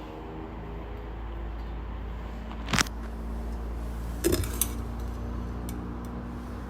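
Steady low hum with sharp clinks of kitchenware or glass, once about three seconds in and a short cluster about a second and a half later.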